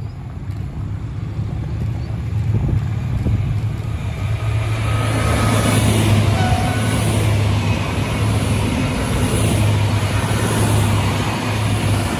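Two coupled V/Line VLocity diesel multiple units passing at speed: a steady low diesel engine drone, with wheel-on-rail noise that swells from about four seconds in and stays loud as the carriages go by.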